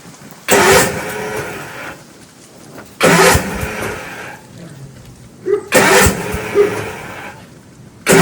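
Gravely engine in a cold start at freezing temperatures, firing three times in sudden bursts that each die away within a second or two: it catches but will not keep running.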